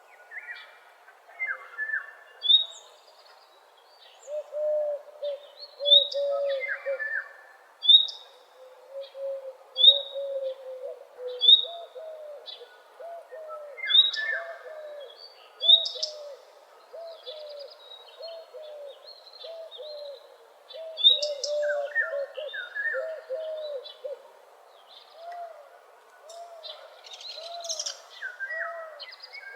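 Morning birdsong from several birds at once: short high chirps repeated every second or two, downward-sliding whistled phrases, and a low run of repeated arched notes underneath.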